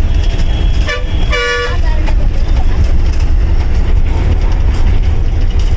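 Steady engine and road rumble of a KSRTC Leyland bus heard from the cabin, with a vehicle horn tooting twice about a second in: a short note and then a louder, brief blast.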